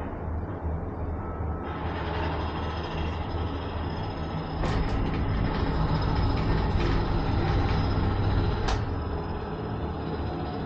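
Cable car gondola in motion, heard from inside the cabin: a steady low rumble and hum that grows louder about halfway through, with a few sharp clicks.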